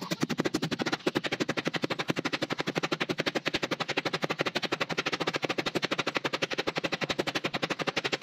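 Hammer striking nails into a wooden deck plank at the bow of a small wooden boat, a rapid, even run of sharp taps that goes on without a break.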